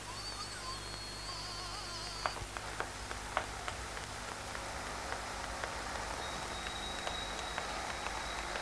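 Footsteps clicking on pavement, several steps a second and then more spaced, over a steady hiss of night-time ambience.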